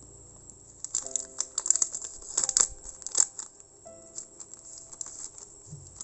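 Clear plastic packaging sleeve and paper sticker sheets crinkling and rustling as they are handled, a dense run of crinkles from about a second in until near the end, loudest around the middle. Soft background music runs underneath.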